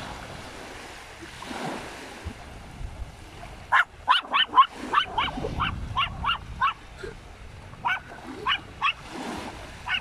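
A small dog barking in quick, high yaps, starting about four seconds in at roughly three a second, then a few separate yaps near the end.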